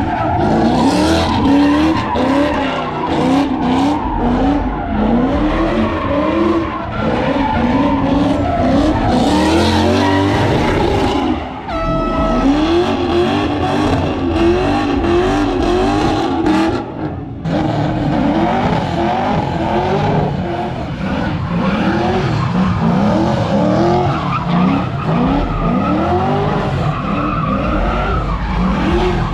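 A car doing donuts: its engine revs rise and fall again and again as the tires squeal and skid. A short steady horn-like tone sounds about twelve seconds in.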